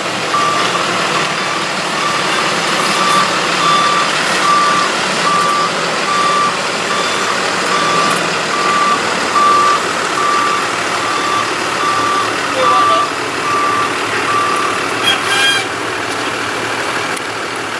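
Truck's reverse alarm beeping steadily, a little more than once a second, over its running engine, as the truck backs up; the beeping stops about 15 seconds in. A brief high squeal follows.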